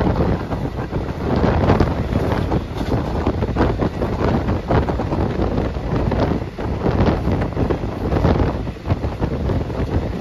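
Wind buffeting a phone's microphone: a loud, uneven rumbling rush that swells and dips without a break.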